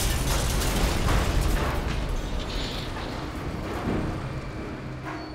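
Rumble of a bomb explosion slowly dying away, with scattered crackles.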